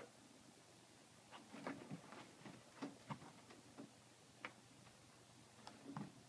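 Faint, scattered taps and scuffs of a kitten's paws and claws playing inside a fabric cube cat bed, a cluster between about one and four seconds in and a few more near the end.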